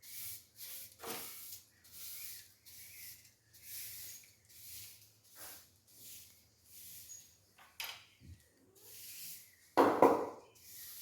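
Repeated scrubbing strokes, a brush or scourer rubbing over a cat's food dish, a little more than one stroke a second. About ten seconds in there is one louder thump.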